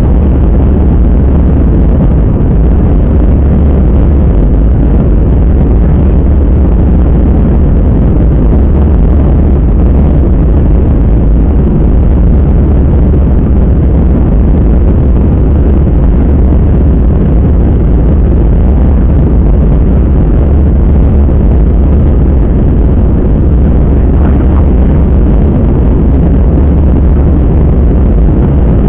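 Airliner cabin noise: a loud, steady low rumble that stays even throughout.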